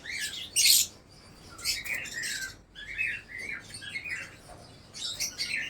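Small pet parrots chirping in many short calls, with one loud, harsh shriek about half a second in.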